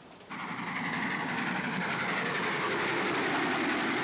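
Passenger train running along the rails, a steady rumble and rattle of the carriages that comes in suddenly about a third of a second in.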